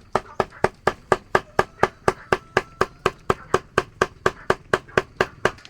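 Knife chopping rapidly and evenly on a wooden cutting board, about four to five strokes a second.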